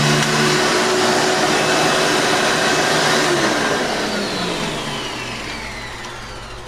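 Two Hoover upright vacuum cleaners, a Convertible and a Preferred, running together. One motor's hum cuts out about half a second in. From about three seconds the remaining motor's whine falls in pitch and fades as it is switched off and spins down.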